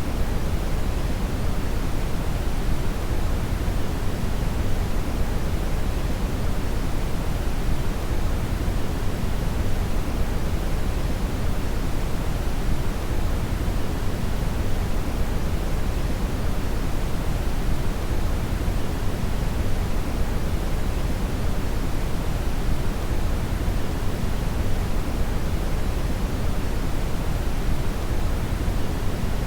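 Synthetic brown (red) noise: a steady, deep, even rush with most of its weight in the bass, unchanging throughout.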